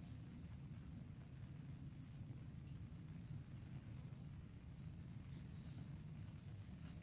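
Forest insects calling: a steady high-pitched trill with repeated pulsed cricket-like chirps. About two seconds in, a short high call sweeps quickly downward, over a low background rumble.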